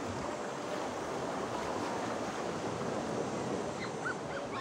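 Sea waves washing against a rocky shore: a steady rush of surf, with wind on the microphone.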